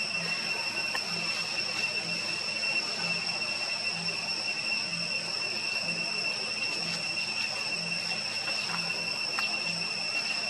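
Steady high-pitched insect drone, a continuous shrill buzz over a soft hiss, with a faint low pulse about once a second and a few faint ticks.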